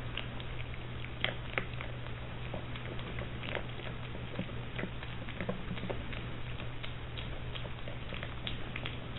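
A piglet crunching and chewing dry pellet food, with many short, irregular crunches and clicks, over a steady low hum.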